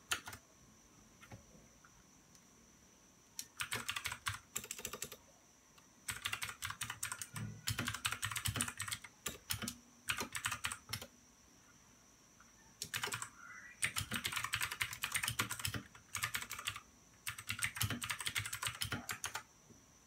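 Typing on a white backlit computer keyboard: several runs of rapid key clicks, separated by pauses of a second or two.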